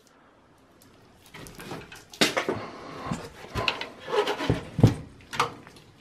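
Gloved hands handling desktop computer parts: scattered clicks and knocks of plastic and metal with rustling, starting about a second in.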